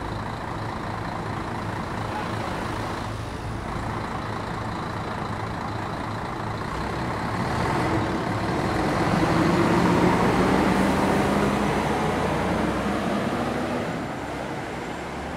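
Diesel coach's engine running at a bus stop, then revving up as the coach pulls away about eight seconds in, the sound swelling and then fading off near the end.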